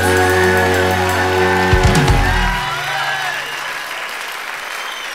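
A live band with piano holds the last chord of a song and ends on a final low hit about two seconds in, with the audience applauding; the applause carries on as the music fades out.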